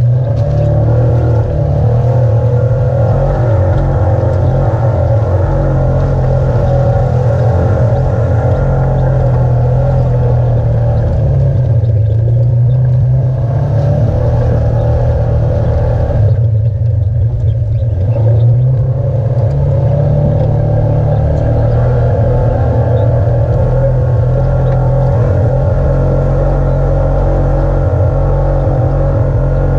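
Side-by-side UTV engine running steadily under way, a constant low rumble with a droning note above it; the higher part of the sound briefly falls away twice in the middle.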